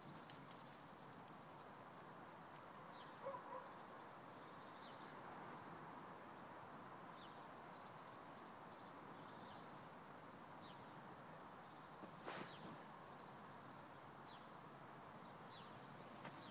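Near silence: faint open-air ambience with scattered small, distant bird chirps, a brief pitched call about three seconds in and a short sharp click about twelve seconds in.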